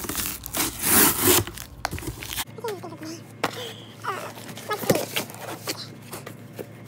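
Packaging rustling and scraping as a package is handled, loudest about a second in, then quieter with a few scattered clicks.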